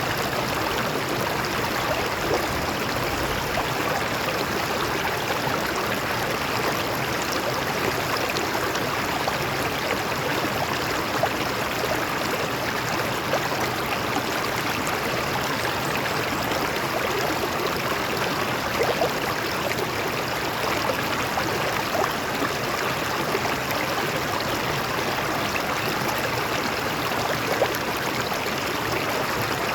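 Stream water flowing over rocks, a steady rushing and splashing with small gurgles throughout.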